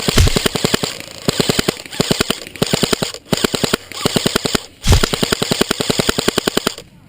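Airsoft electric rifle, the G&G CM16, firing on full auto in long bursts of rapid, evenly spaced shots. The bursts break off briefly about three seconds in and again around five seconds in.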